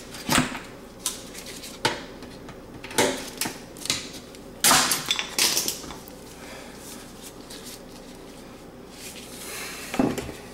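Irregular metallic clicks and clatter of pliers and small hand tools working at an oven's burnt terminal block inside the sheet-metal back of the oven, loudest about five seconds in, then quieter.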